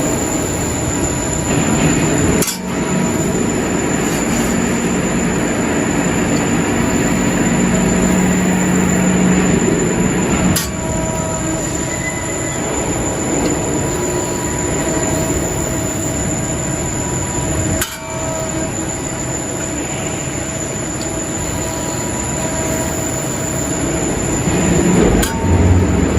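CNC press brake running: a steady mechanical hum and high whine with a few held tones, broken by abrupt cuts about every seven or eight seconds.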